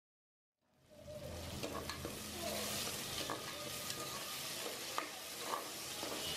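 Chopped onions and green chillies sizzling in hot oil in a pressure cooker pot while a metal spoon stirs and scrapes through them, with a few light clicks. The sizzle starts about a second in and then runs steadily.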